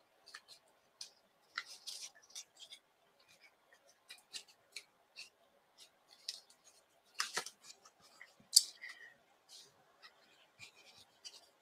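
Cardstock pop-up pieces being folded, opened and pressed by hand: faint, scattered paper rustles and crisp little clicks, with a couple of louder ones past the middle.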